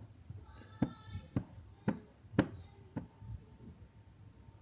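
Sharp clicks and taps of a metal knife striking the table board as it cuts down through a soft purple block, about five short strikes roughly half a second apart.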